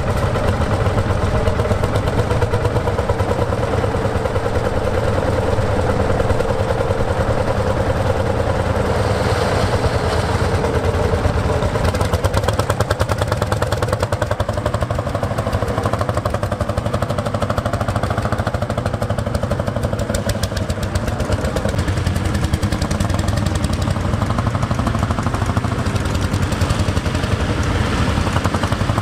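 Two Lanz Bulldog tractors' single-cylinder hot-bulb two-stroke engines running together, giving a steady, rapid, overlapping chugging.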